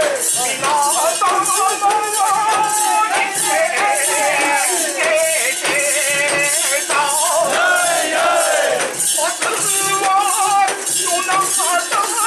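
Japanese shrine festival music: a wavering, ornamented melody over a steady rattling, jangling beat, with a crowd.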